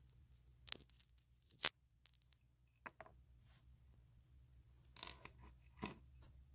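Close-miked ASMR trigger sounds: a handful of sharp, separate clicks and crackles against a low steady hum, the loudest just under two seconds in.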